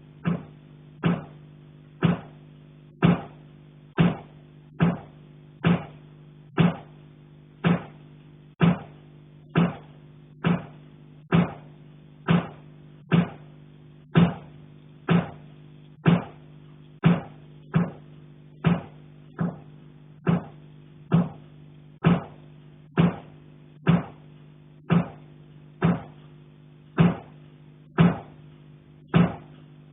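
Repeated knocks on a pipe, about one a second, each with a short metallic ring, over a steady low hum.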